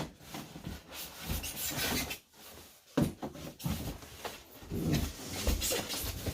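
Cardboard and foam packing rubbing and knocking as a heavy sewing machine is worked out of its box, with a sharp knock about three seconds in.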